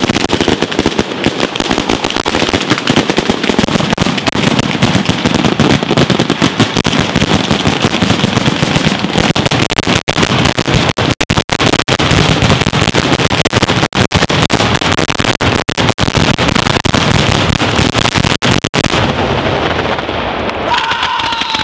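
Batteria alla bolognese: a long ground-level chain of firecrackers and petards going off in a dense, unbroken crackle of bangs, thinning out a couple of seconds before the end.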